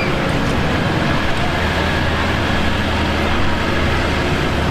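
A motor vehicle's engine running steadily with a low hum under a loud wash of outdoor noise.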